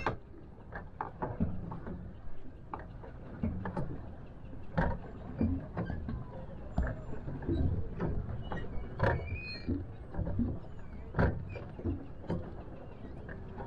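Plastic pedal boat being pedalled: its pedal and paddle-wheel mechanism knocks and clicks roughly every half second to a second over a low steady rumble.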